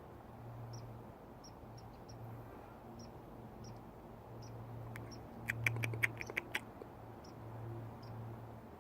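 Baby squirrel squeaking: faint short high peeps about every half second, then a rapid run of about eight sharp, louder chirps a little past the middle. A steady low hum runs underneath.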